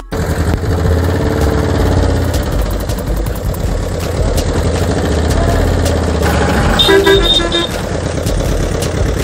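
Truck engine running steadily, with a horn honking twice about seven seconds in.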